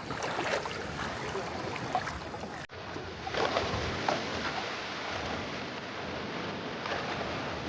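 Seashore ambience: a steady wash of wind and water noise, broken by an abrupt edit cut about two and a half seconds in.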